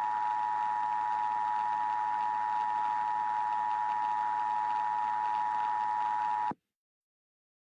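Emergency Alert System two-tone attention signal: a steady dual tone over a hiss, cutting off abruptly about six and a half seconds in.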